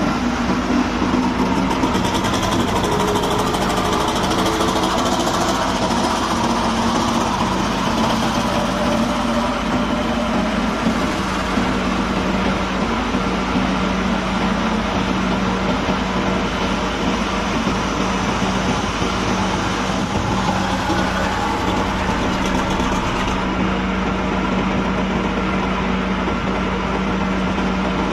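Heavy diesel dump truck engines running as a loaded truck pulls past and drives off, the engine note shifting in roughly the first ten seconds before settling. A steady engine drone runs underneath throughout.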